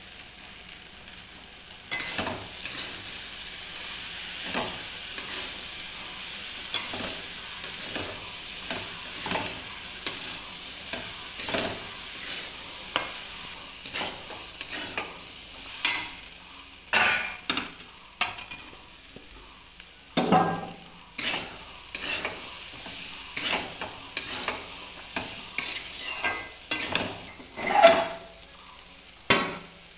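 Peas and onion frying in oil in a metal wok, sizzling, while a flat metal spatula stirs and scrapes them against the pan in repeated strokes. The sizzle starts about two seconds in and eases off midway, and the scraping strokes grow louder later on.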